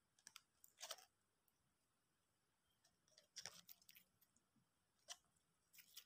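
Faint handling sounds from a clear plastic jar of slime: a handful of short clicks and squishy crackles, the loudest about a second in.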